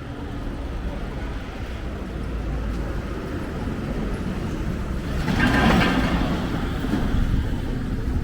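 A motor vehicle's engine running on the street and passing close by, growing louder to a peak about five and a half seconds in, then easing off.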